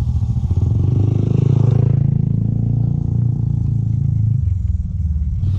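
Steady low rumble of wind and road noise on a neck-mounted GoPro Hero6 microphone while riding a folding bicycle, recorded with the camera's wind-noise reduction switched off. No rattle from the mount is heard.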